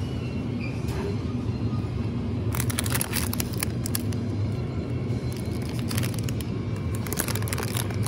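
Crackling plastic food packaging being handled, in two bursts of crinkles: the first about two and a half seconds in, the second from about five seconds on. Under it runs a steady low hum, with music playing.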